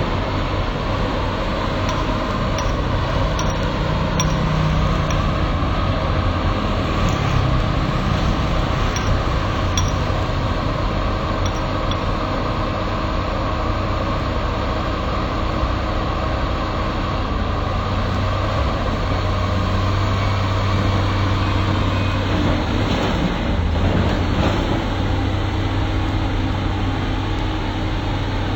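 Excavator's diesel engine running steadily under light load, with a few faint metallic clinks in the first half.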